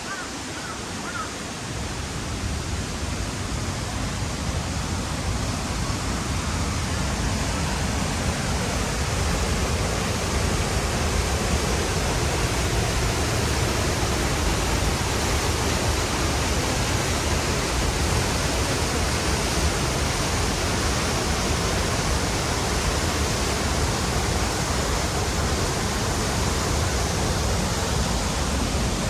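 Rushing water of the Oirase mountain stream: a steady noise of flowing water that grows louder over the first ten seconds or so, then holds steady.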